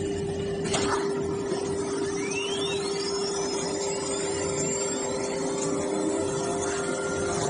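Suntec automatic-unloading CNC nesting router running while it pushes a cut wood panel off its table: a steady mechanical hum with one held tone, a knock about a second in, and faint rising whines a couple of seconds later.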